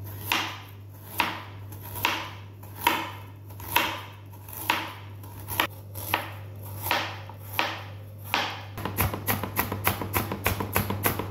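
Chef's knife slicing peeled ginger on a plastic cutting board: single cuts about once a second, then from about nine seconds in a quick run of about four cuts a second as the slices are cut into thin strips.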